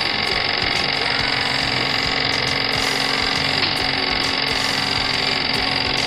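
Jensen Model 65 toy steam engine running at speed, belt-driving a Jensen Model 15 toy generator at a 1:1 ratio: a steady, fast mechanical whir with a constant low hum.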